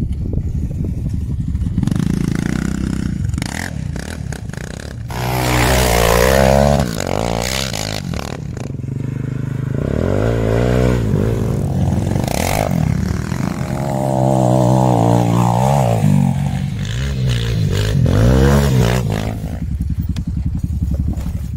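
Single-cylinder quad bike (ATV) engine revving up and easing off about four times as it is ridden, with knocks and clatter in between.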